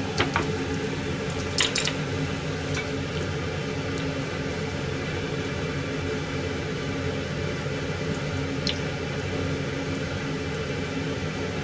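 Steady hum of a kitchen exhaust fan, with a few light metallic clinks from a metal kakiage ring mould and utensils knocking against a pot of frying oil: a couple in the first two seconds and one more near the end.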